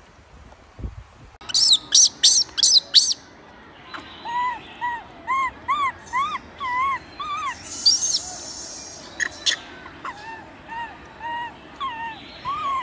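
Infant macaque crying in distress while being handled roughly by its mother. First come a few loud, shrill screams, then a long string of short cries that rise and fall, about two a second, with one more shrill scream about two-thirds of the way through.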